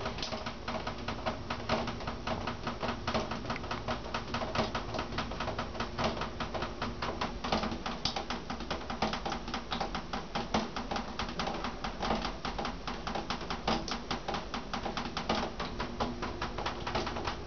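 Fast, irregular clicking, several clicks a second, over a steady low hum.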